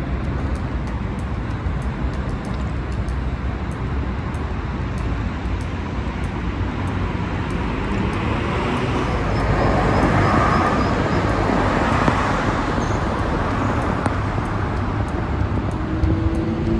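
Steady road-traffic noise, swelling as a car passes by about ten seconds in, then fading back.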